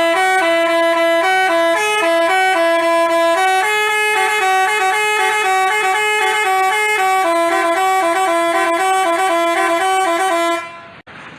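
Basuri telolet horn playing a melody of stepped notes, cutting off abruptly near the end.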